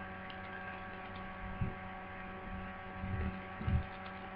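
Steady electrical mains hum on the recording, with a few soft low thumps in the second half.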